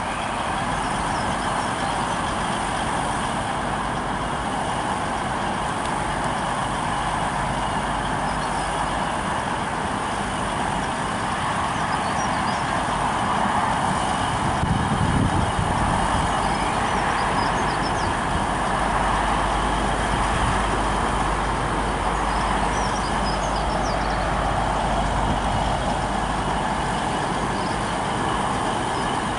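Virgin Voyager diesel multiple unit standing at the platform with its underfloor diesel engines running steadily. A deeper rumble comes in about halfway through.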